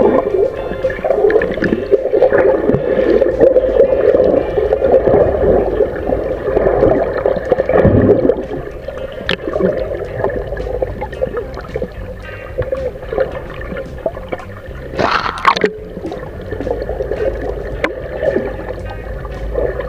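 Water gurgling and sloshing against a fishing boat's hull, irregular and churning, with a brief louder burst of noise about fifteen seconds in.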